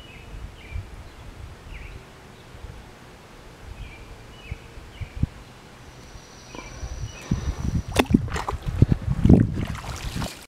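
Wind rumbling on the microphone with a small bird giving short chirps every second or so. About seven seconds in, louder knocks, thumps and rustles from the camera being handled and swung around take over.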